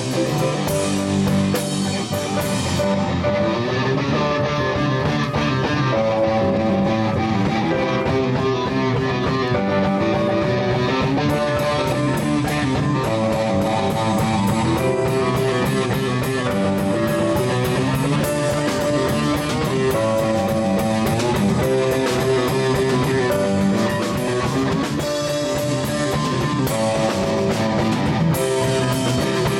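Live amateur rock band playing an instrumental passage: electric guitar, bass guitar, drum kit and keyboard. The cymbals drop out about three seconds in and come back around eleven seconds in.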